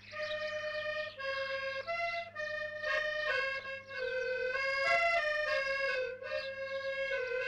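Piano accordion playing a melody of held notes, with a faint steady low hum underneath.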